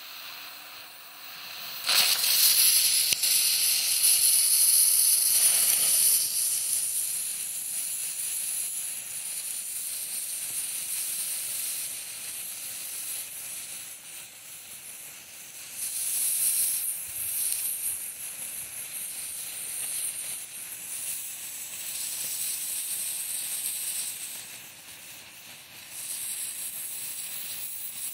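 Sparklers burning with a loud fizzing hiss that swells and eases. It begins about two seconds in, as the first sparkler catches from a jet-flame lighter, whose fainter hiss comes before it.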